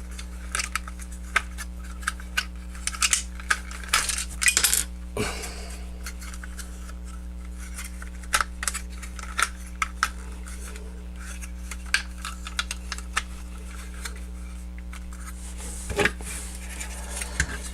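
Hard plastic parts of a Jinbao transforming robot figure clicking and knocking as its joints and panels are worked by hand, in irregular clusters of sharp clicks, over a steady low electrical hum.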